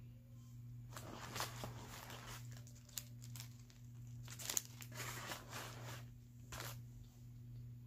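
Eating close to the microphone: irregular bursts of chewing and crinkling noise over a steady low hum.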